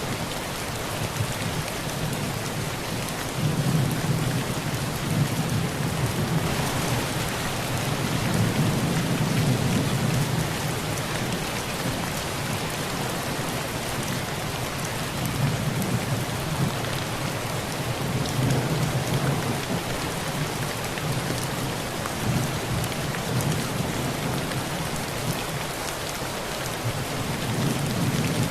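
Heavy rain pattering steadily on a metal tin roof, with thunder rumbling low underneath and swelling several times, loudest from a few seconds in to about ten seconds in.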